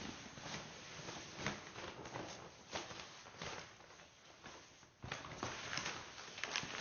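Building-work handling noise: irregular knocks, clicks and scraping, with a burst of busier knocking about five seconds in.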